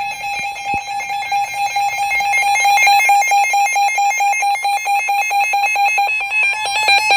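Emergency Alert System attention tone: a loud, shrill electronic alert tone held for several seconds, the signal that a severe thunderstorm warning message is about to follow.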